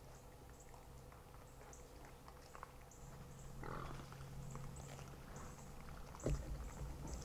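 Feral hogs grunting faintly, with a louder thump about six seconds in.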